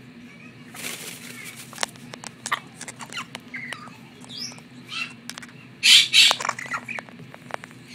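African grey parrot eating from a hand: its beak clicks and crunches on the food, with short chirps and harsh squawks in between. The loudest is a pair of squawks about six seconds in.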